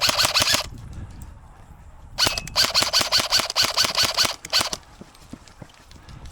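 Airsoft rifle firing on full auto as a rapid, even string of shots. One burst ends about half a second in, and a longer burst runs from about two seconds in to nearly five seconds in.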